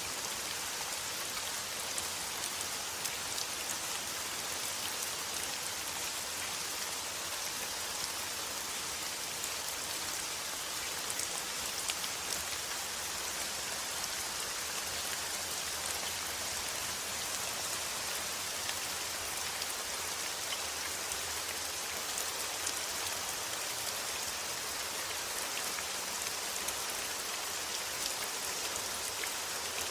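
Heavy rain falling steadily: a dense, even hiss with scattered individual drop ticks.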